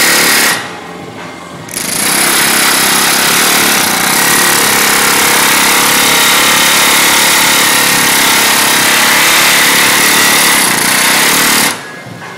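Pneumatic air hammer driving a chasing tool into a bronze sheet for repoussé work, running in a steady, continuous hammering. It stops about half a second in and starts again about a second later, then cuts off near the end.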